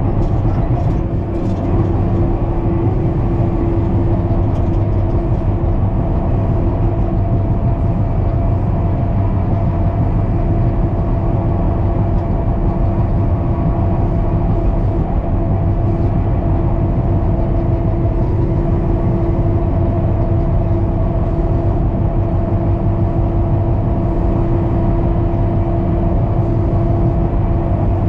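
John Deere 550K crawler dozer's diesel engine running steadily while grading, a constant low drone with a steady whine over it.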